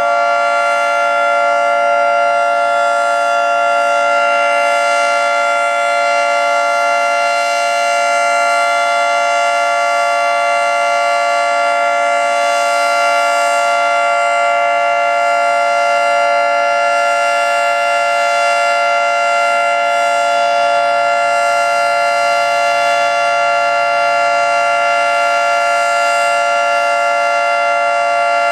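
Federal Signal 2T22 dual-tone outdoor warning siren sounding its Alert signal, a loud steady chord held at constant pitch.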